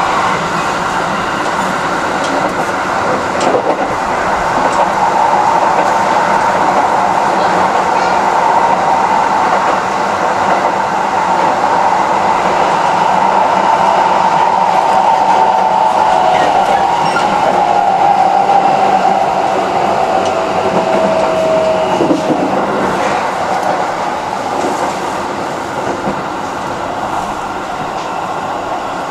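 Keikyu 1000 series electric train running, heard from inside the car: a steady rumble of wheels on rail with a traction-motor whine. The whine holds, then falls in pitch over several seconds and dies out about three-quarters of the way through as the train slows.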